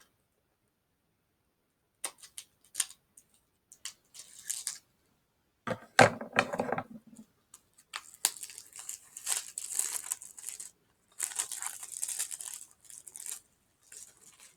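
Plastic shrink-wrap being torn and peeled off a sealed DVD case, crinkling in bursts. A loud sharp snap comes about six seconds in.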